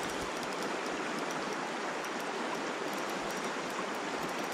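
Fast, shallow river current flowing steadily over a riffle close to the microphone: an even, constant rush of water.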